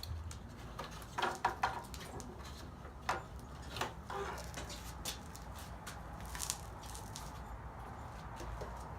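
Scattered small clicks and scrapes of a tool prying around a motorcycle fork's dust cover to work it loose, over a low steady hum.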